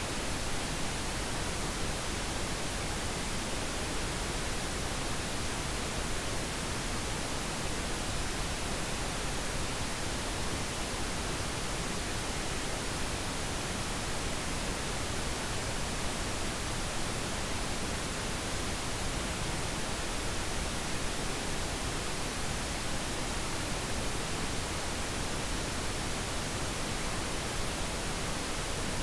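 Pink noise: a steady, even hiss spread across all pitches, unchanging throughout.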